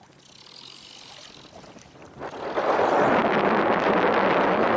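Strong wind rushing past a small boat: faint at first, then a loud, steady rush that rises about two seconds in and holds.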